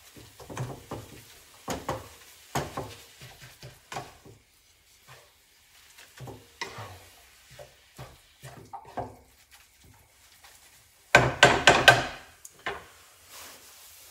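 Wooden spatula stirring and scraping pork mince in a frying pan: irregular scrapes and knocks against the pan. About eleven seconds in there is a louder run of knocks lasting about a second.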